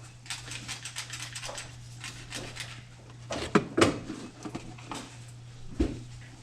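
Light clicks and rattles of objects being handled, with two sharp knocks close together about halfway through and a dull thump near the end, over a steady low hum.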